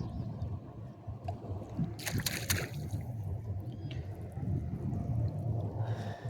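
A brief splash of water about two seconds in, over a steady low rumble.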